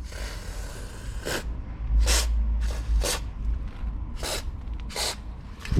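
Aerosol can of WD-40 spraying in about six short bursts onto a car door's check strap (door stop) and hinges.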